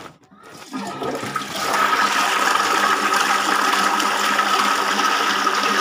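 Toilet flushing: a brief click at the start, then water rushing into the bowl, building over the first two seconds or so and then running steadily.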